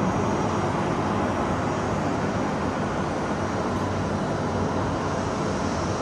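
Steady rumble and hiss of distant city traffic, even in level throughout.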